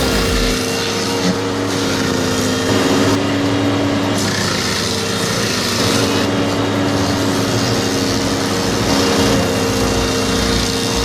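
Engine of a machine running steadily. Its sound shifts every few seconds.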